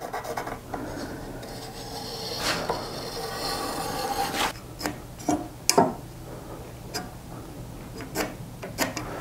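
Pencil scratching along a wooden board as a line is drawn against an adjustable square slid along the edge, a steady rubbing for about four seconds. In the second half come several sharp knocks and taps as the square and board are handled.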